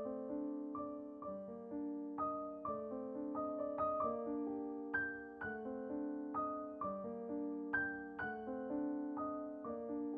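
Background piano music: a gentle tune of struck notes that fade away, over lower notes repeated in a steady pattern.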